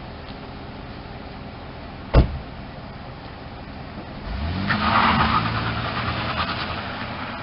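A minivan's door slams shut once, then its engine revs up with a rising pitch as the van pulls away from the curb and drives off, fading slowly.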